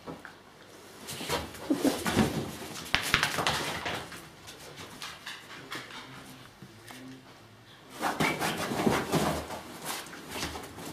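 Basenji dogs play-wrestling on a fabric sofa: scuffling and rustling with dog whines and play noises, in two busy spells, about one to four seconds in and again about eight to ten seconds in.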